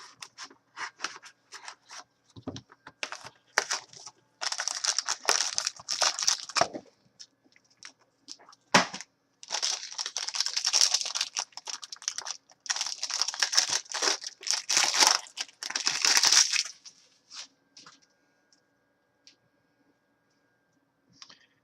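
Plastic shrink wrap being torn off a sealed box of trading cards and crinkled. Scattered clicks and rustles come first, then three long stretches of tearing and crinkling, starting about four, nine and thirteen seconds in, before it falls quiet.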